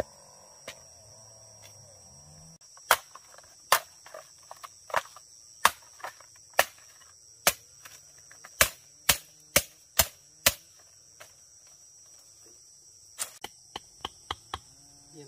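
Machete blade chopping bamboo: about a dozen sharp, irregular knocks between three and eleven seconds in, then a quicker run of lighter strikes near the end. A steady high insect buzz runs underneath.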